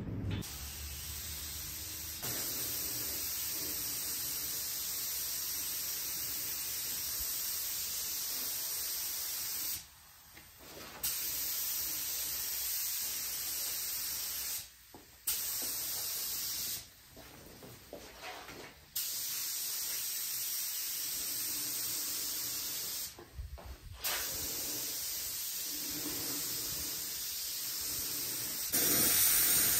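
Spray hiss in long passes, stopping and restarting several times with short pauses, louder near the end: paint being sprayed.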